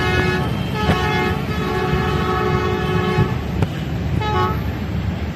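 Diesel locomotive horn sounding in long blasts for about three seconds, then a short toot about four seconds in, as the train pulls away, over the steady low rumble of the departing train.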